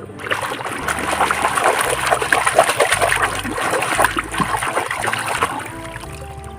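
Water splashing and spraying over muddy toy vehicles being washed, a loud, dense rush that eases off about a second before the end. Soft background music plays underneath.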